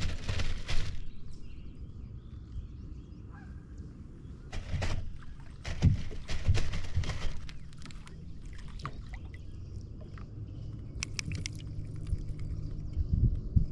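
Water splashing and scattered knocks as small sunfish are hooked and pulled up beside a kayak, in clusters about a second in, around the middle and near the end, over a steady low rumble.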